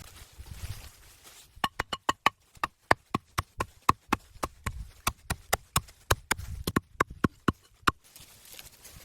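A rapid run of sharp knocks, about four a second, many with a short ringing tone, starting about one and a half seconds in and stopping near the end.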